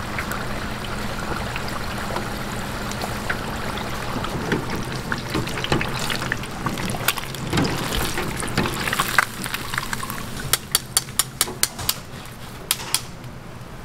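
Hot oil in a deep fryer sizzling steadily around battered pieces. About ten seconds in comes a quick run of about eight metallic taps, then two more, as a wire mesh skimmer lifts the pieces out and knocks against the fryer.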